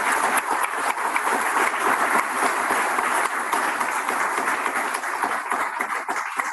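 Audience applauding: many hands clapping at once in a dense, steady patter that dies away near the end.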